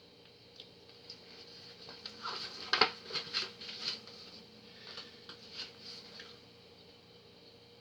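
Paper and card being handled: short rustles and light taps, bunched together a few seconds in, then a few softer ones.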